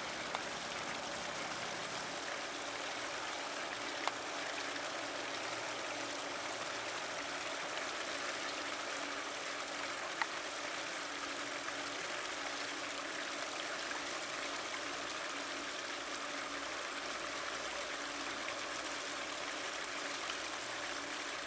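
Steady rush of stream water spilling over a low concrete weir and trickling among rocks, with a couple of faint clicks.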